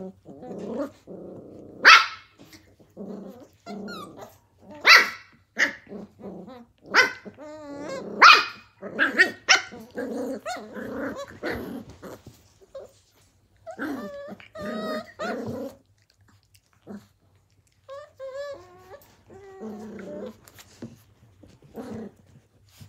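Australian cattle dog (blue heeler) puppies play-fighting: growling in short bursts with sharp yips and barks, the loudest about 2, 5 and 8 seconds in, and a few wavering higher cries later on as it quietens.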